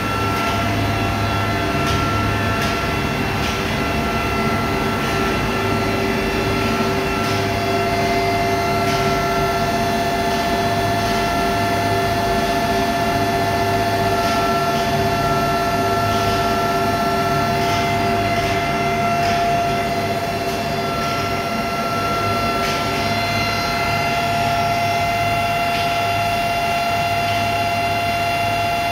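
Running plastics strand pelletizing line producing micro pellets: a steady loud machinery drone with a low hum and several steady whining tones, the extruder, strand pelletizer and blowers all running together.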